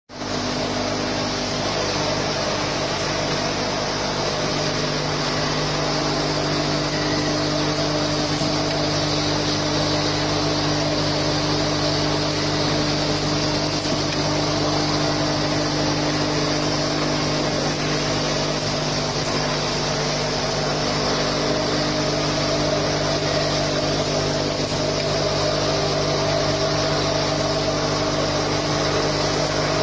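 Automatic pad printing machine line for erasers running, with its feeders and conveyor: a steady mechanical hum holding several constant tones under an even hiss.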